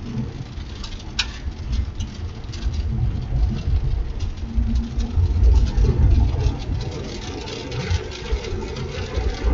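Low, uneven rumble of a car's engine and road noise, heard from inside the moving vehicle, with one sharp click about a second in.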